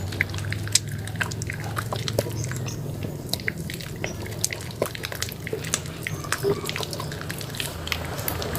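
Soaked soap being squished and lathered by hand: irregular wet crackling and clicking with a few louder pops, over a steady low hum.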